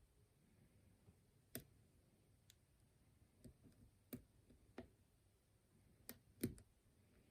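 Faint, scattered clicks of a lock pick and tension wrench working the pins inside a six-pin Lockwood oval challenge lock cylinder, about seven sharp clicks at irregular spacing.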